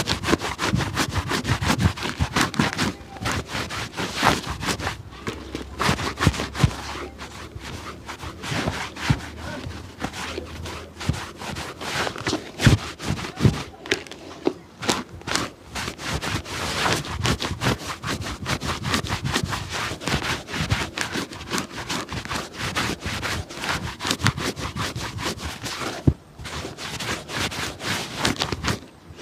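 Hand work on a dirty shoe: a quick, irregular run of scraping and rubbing strokes against the leather and sole, with a brief pause near the end.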